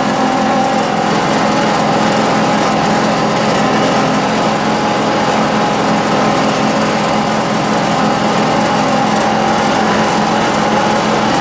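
John Deere X585 garden tractor's engine running steadily as the tractor drives, with a steady whine over the engine note.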